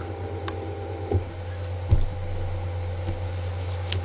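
Steady low electrical hum with a few faint short clicks.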